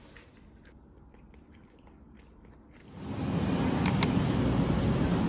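Faint clicks and scrapes of a utensil mixing food in a paper bowl. About three seconds in, a much louder steady hum and hiss of supermarket ambience takes over, with two sharp ticks about a second later.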